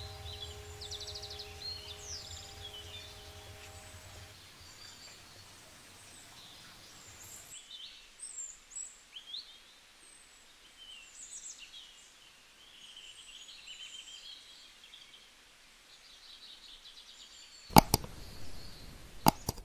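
Birds chirping in short, scattered calls over a faint background hum, while a held musical chord fades out in the first few seconds. Near the end come a few sharp clicks, the loudest sounds, like mouse-click sound effects.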